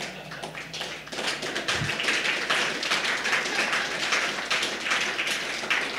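Audience applause: many hands clapping, growing fuller about a second in and carrying on, in reaction to a joke.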